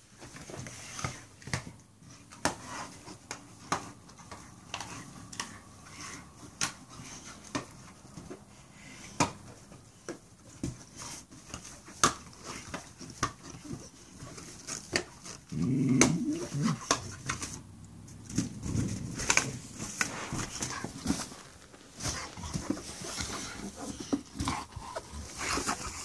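A dog playing with an inflated latex balloon, bumping and nosing it across the floor: many irregular sharp taps and squeaks of the balloon's rubber. Twice in the second half there is a louder low grunting sound from the dog.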